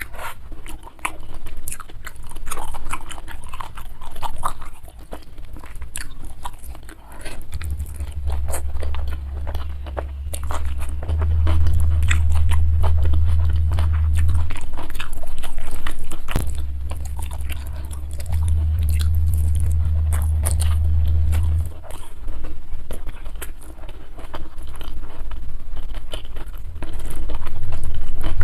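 Close-miked chewing and biting of crunchy food, with many rapid, crisp crunches. A steady low rumble comes in twice for a few seconds.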